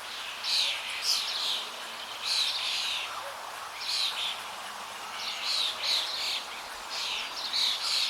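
Natural ambience of flowing water, a steady rushing hiss, with small birds chirping over it in short phrases about once a second.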